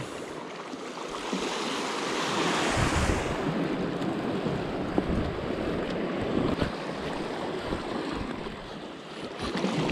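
Sea waves washing over the rocks, swelling about two to three seconds in, with wind buffeting the microphone.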